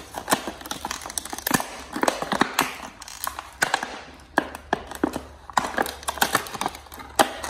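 Clear plastic clamshell packaging being pried and bent open by hand, crackling and clicking irregularly several times a second, with the sharpest snap near the end.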